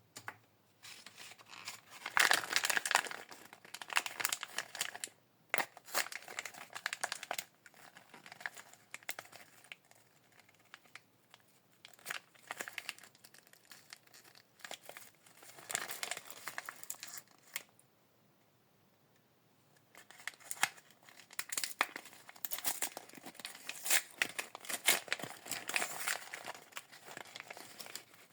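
Small plastic wrappers of MiniBrands miniatures crinkling and tearing open by hand, in several bursts separated by short pauses.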